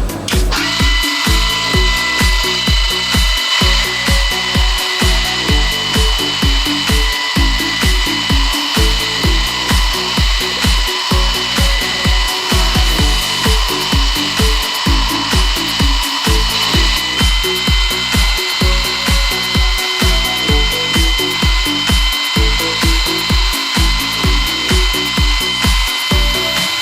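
Swiss-type CNC lathe machining, with a steady high-pitched whine and cutting noise, over background music with a steady bass beat of about two pulses a second.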